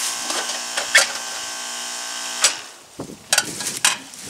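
Heat pump outdoor unit powered on with a steady electrical hum while its fan blade stays stalled, a fault the owner traces to a burned-out run capacitor. A couple of sharp knocks come about a second in. The hum cuts off suddenly about two and a half seconds in as the power is disconnected, followed by a few clicks and rustling.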